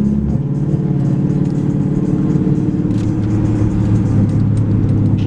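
Inside the cabin of a moving 2014 Dodge Charger R/T: steady engine and road drone, with music playing over it.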